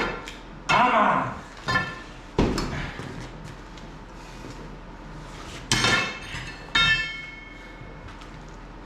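Metal striking metal: about five sharp clanks spread irregularly, the last two ringing on with a bright metallic tone.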